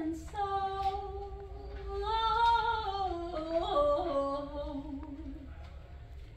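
A woman singing long held notes in an improvised line. Her voice holds one pitch, swells and rises gently, then steps down to a lower held note that fades near the end.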